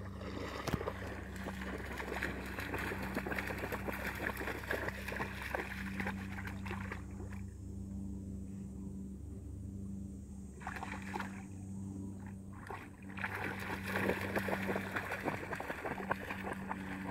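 Gordon setter pawing and splashing in shallow lake water, with a quieter spell of about three seconds in the middle while it stands still. A steady low hum runs underneath.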